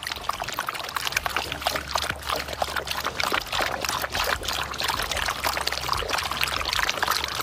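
Running water: a dense, steady splashing crackle.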